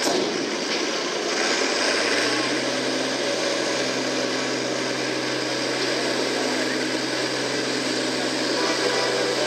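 International Harvester farm stock tractor's diesel engine working hard under load while pulling a weight-transfer sled, pouring black smoke. A steady engine drone whose pitch settles and holds even about two seconds in.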